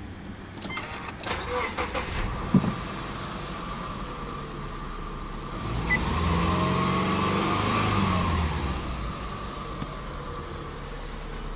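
Subaru Legacy B4 2.0i's flat-four boxer engine. After a few clicks it runs steadily, then about halfway through it rises to a raised idle of about 2,000 rpm. Its pitch then falls back as it settles lower near the end.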